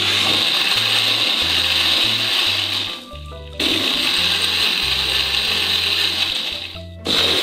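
Electric countertop blender running, crushing ice into cola. It stops for about half a second about three seconds in, then runs again and cuts off near the end. Background music with a stepping bass line runs underneath.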